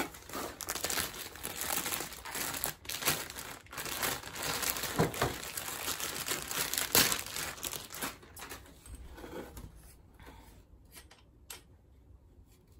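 Clear plastic packaging crinkling and rustling as it is handled and pulled off a folded tripod stand. After about eight seconds it dies down to a few light clicks and taps.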